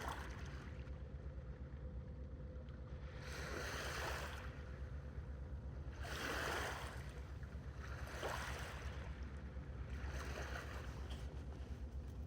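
Sea water washing and lapping, with swells of splashing hiss coming a couple of seconds apart over a low steady rumble.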